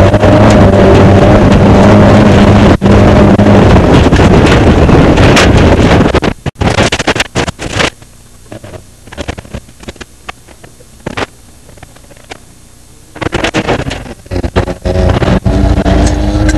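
Off-road desert race car's engine running loud, with wind rushing, heard from inside the car. About six seconds in it cuts away to a quieter stretch with scattered knocks and clicks. The engine noise comes back loud about four seconds from the end, with rising revs.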